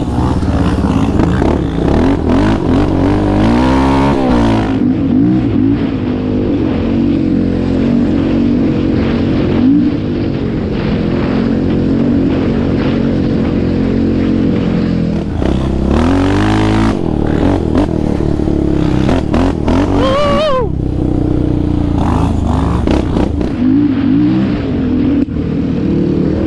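Sport ATV engines revving up and down as the quads accelerate and shift along a dirt trail: first a 2019 Yamaha Raptor 700R's single-cylinder engine, then another quad's, with the pitch climbing and dropping again and again.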